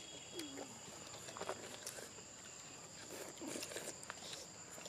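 Faint outdoor ambience with a steady high-pitched whine and scattered small clicks and smacks.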